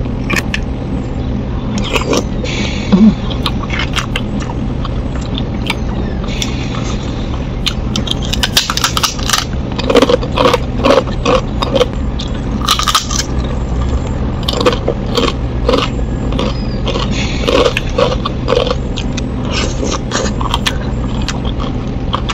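Close-up eating sounds: crunching bites of a thin fried cracker and chewing, in spells near the middle and again later, mixed with a spoon scraping and clicking against a plate. A steady low hum runs underneath.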